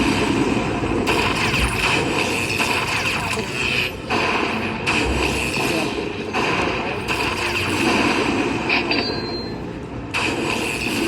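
A Lightning Link slot machine's bonus-round sounds over the noise of a busy casino floor, with a steady high tone running through it. The sound changes abruptly every few seconds.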